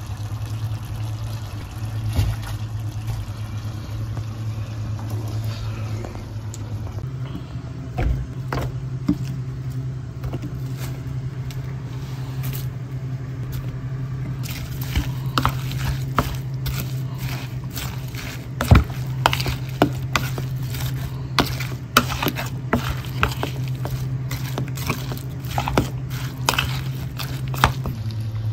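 Pumpkin fritters frying in oil for the first few seconds, then a spoon scraping and clicking against a plastic mixing bowl as sliced vegetables are tossed with batter. The clicks grow thick and fast in the second half. A steady low hum runs underneath.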